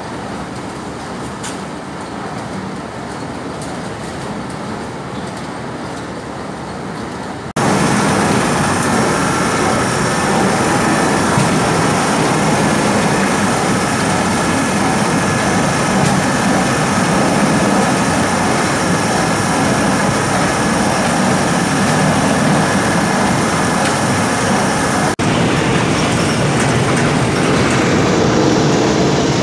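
Palm kernel oil mill machinery running: a steady, dense mechanical noise with a few constant whining tones. It becomes much louder about seven seconds in.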